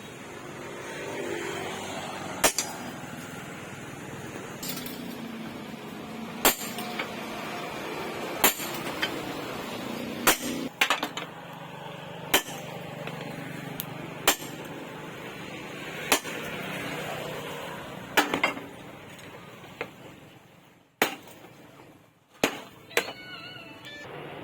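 Hammer blows on metal at a slow, even pace, about one every two seconds, over a steady background hiss.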